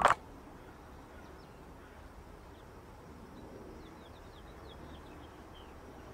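A brief loud click at the very start, then a string of faint, short bird chirps over a low, steady background rumble.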